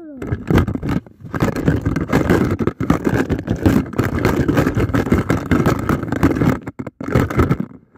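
Fingers rubbing and pressing over a phone's microphone, making a loud, dense scraping rumble that drops out briefly a few times.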